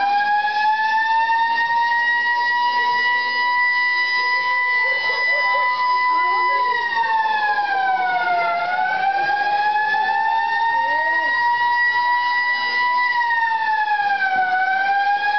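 Alarm siren sounding the signal for a civil defence evacuation drill: a steady wail that climbs slowly, holds, and sags in pitch twice, about seven and fourteen seconds in. Faint voices underneath.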